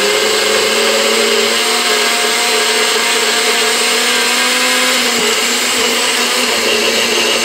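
Electric blender motor running at a steady pitch on a thick, layered shake. The ingredients are not mixing because there is no liquid at the bottom of the jar under the muffin.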